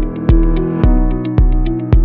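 Electronic intro music: a steady kick drum on every beat, a little under two a second, with lighter ticks between beats under sustained synth chords.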